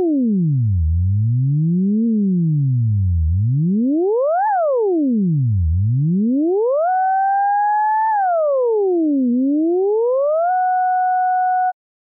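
A synthesized pure tone with one faint octave overtone, its pitch set by the height of a tracer running over a rotating polyhedron's wireframe. It glides up and down in straight, zigzag sweeps between a low hum and a high whistle, several times over. It holds one pitch steadily near the end, then cuts off abruptly.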